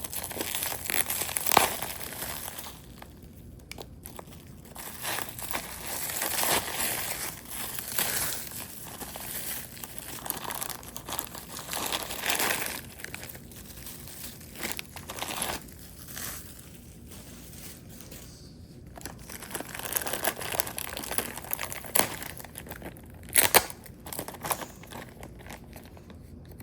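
Packaging crinkling and rustling as a package of black tourmaline pieces is cut open and unwrapped, with a few sharp clicks.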